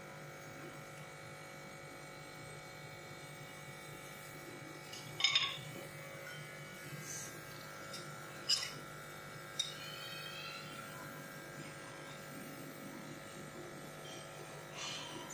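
Metal forks clinking a few times against glass dishes as a kabab is turned in beaten egg and breadcrumbs, over a steady faint electrical hum.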